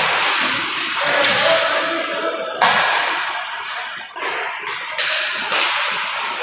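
Ice hockey on a rink: skate blades scraping the ice and sharp cracks of sticks and pucks, echoing in the arena. There are three sharp cracks, each trailing off in a hiss over about a second.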